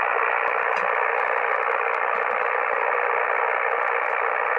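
Ham radio receiver's speaker hissing with steady band static on the 10-metre band, the sound narrowed to a thin mid-range band by the receiver's filter. It is the open receiver listening after a CQ call, with no station answering.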